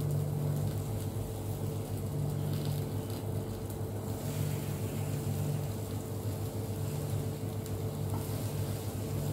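Tomato slices and egg frying in a pan with a light sizzle and a few soft scrapes as a spatula and fork turn them, over a steady low hum.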